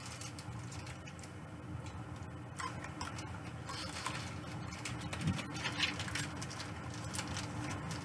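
Light, scattered crunching and crackling as thin Pocky biscuit sticks are bitten and chewed, with rustling of the foil snack packet in hand, and a soft thump a little after five seconds.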